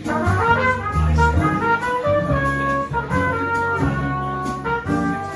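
Live jazz quartet playing: a trumpet plays a quick line of short notes over upright bass and a drum kit with cymbals, with a hollow-body electric guitar in the band.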